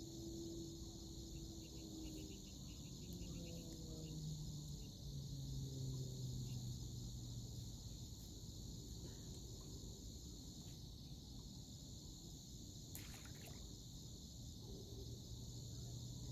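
Faint, steady high-pitched insect chorus, crickets or similar, over a low rumble with a wavering low hum. A short rustle about thirteen seconds in.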